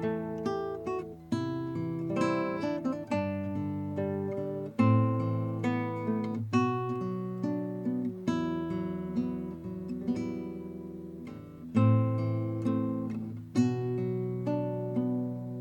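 Kodaira AST 100 nylon-string classical guitar played fingerstyle: a steady run of plucked chords and arpeggios over sustained bass notes, each note ringing on.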